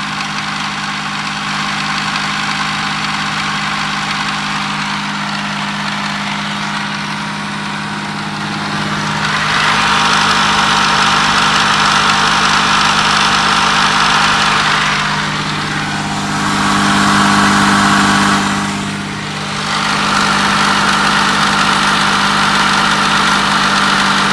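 Audi 3.0 TDI V6 diesel (CVMD) idling with a clattering knock from the engine, which the uploader puts down to the timing-chain tensioner. The noise gets louder and brighter about ten seconds in and dips briefly twice.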